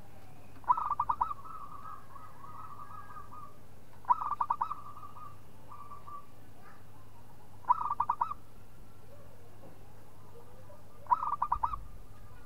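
Zebra dove (perkutut) cooing: four short bursts of rapid staccato coos, about three and a half seconds apart, with fainter cooing between the first two bursts.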